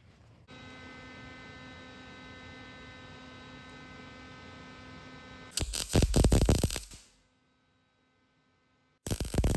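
MIG welder humming steadily, then two short bursts of MIG arc crackle, each about a second and a half long, as a nut is welded onto a broken exhaust manifold bolt stub.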